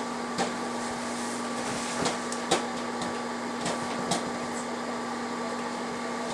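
Bag of microwave popcorn popping inside an old Citizen microwave oven. The oven runs with a steady hum while single kernels pop at scattered moments, about half a dozen pops, as the bag begins to pop.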